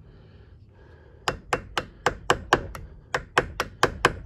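A hammer tapping a flat chisel set against the lip of a broken thumb screw, trying to drive the screw round and out. The metallic taps start about a second and a half in and come quickly, about four a second, with a short pause midway.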